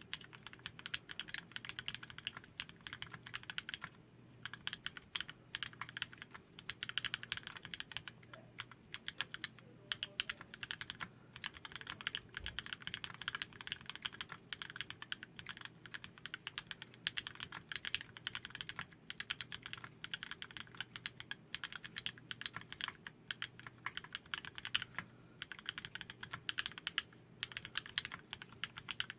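Custom mechanical keyboard typed on continuously: Cherry MX Black linear switches with 57g springs in an aluminium plate, under graphite blue PD keycaps, giving rapid key clacks, with brief pauses about four seconds in and near the end.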